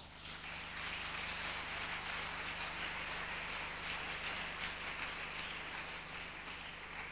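Audience applauding, an even clatter of clapping that fades slowly near the end, over a steady low electrical hum.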